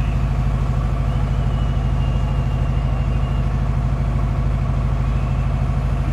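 An engine running steadily: a low rumble with a fast, even throb and no change in level. No separate firework bangs stand out.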